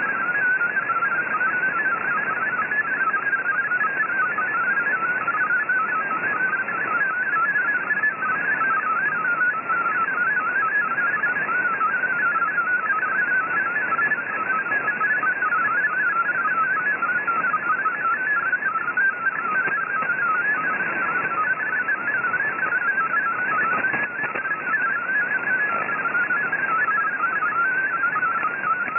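MFSK32 digital text mode received on shortwave: a fast, unbroken stream of short tones hopping quickly in pitch, over steady band hiss and static. The signal carries a text bulletin that is being decoded as it plays.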